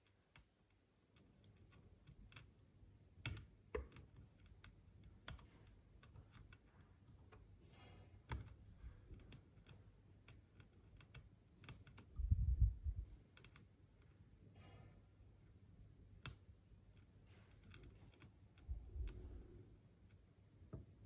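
Faint, irregular small clicks and ticks of a fine metal tool working on a motherboard's CPU socket pins. A dull low bump comes about twelve seconds in, and another near the end.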